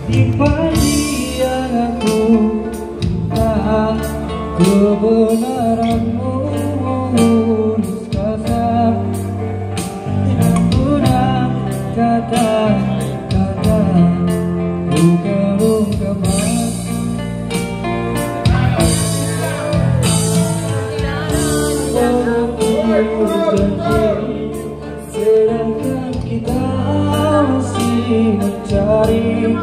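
Live band playing through a PA: a male vocalist sings a slow pop ballad, backed by acoustic guitar, electric bass and a drum kit keeping a steady beat.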